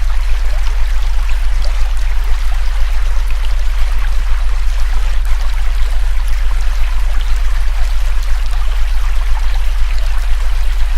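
A steady, deep synthesized tone held without change, layered over the continuous rushing of a river.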